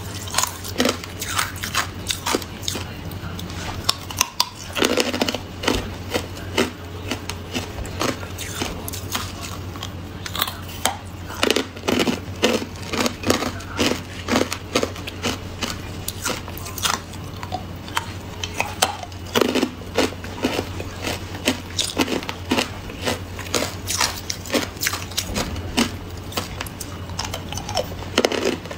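A person biting and chewing hard clear ice cubes: rapid sharp crunches and cracks, several a second, over a steady low hum.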